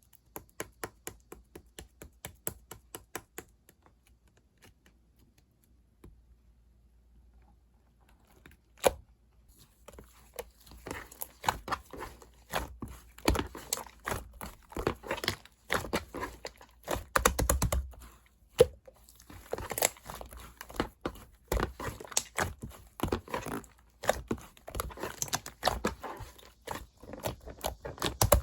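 Fondant slime being squished and poked by hand, making quick sticky clicks and crackles: an even run of about four clicks a second at first, a short lull, then denser, irregular clicking and popping from about ten seconds in.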